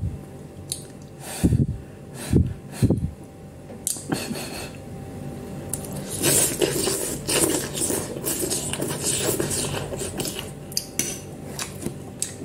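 A person eating instant noodles with a fork from a bowl: a few knocks of the fork and bowl early on, then a long stretch of slurping noodles from about six seconds in.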